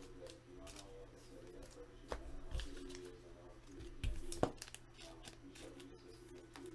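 Trading cards being handled and shuffled on a tabletop, with soft rustling and a few sharp taps and clicks as cards are set down and moved.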